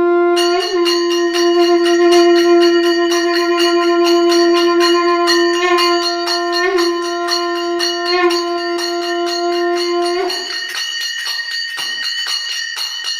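A conch shell (shankh) blown in one long, steady note that stops about ten seconds in, over temple bells rung rapidly and continuously.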